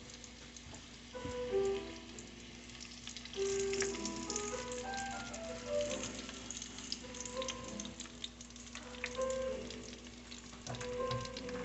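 Calamari deep-frying in hot oil: a steady crackling sizzle with a scatter of small pops. A simple melody of short notes plays along with it.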